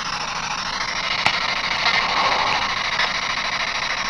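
Radio hissing with static as it is swept for spirit replies, with one sharp click about a second in.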